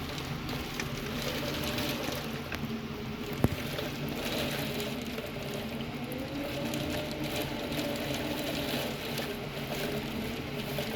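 Heavy rain pattering during a strong windstorm, with the wind making a faint moaning tone that slowly rises and falls. A single sharp knock about three and a half seconds in.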